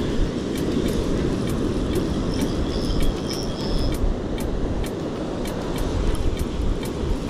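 Surf breaking and washing up the beach, with wind rumbling on the microphone and a faint ticking of about two a second from a spinning reel being cranked as a fish is reeled in.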